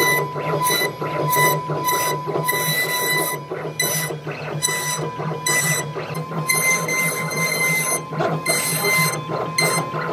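CNC router spindle whining steadily while its bit carves a relief pattern into a wood panel, the cutting coming through as rapid, uneven rasps. The whine steps slightly higher about six seconds in.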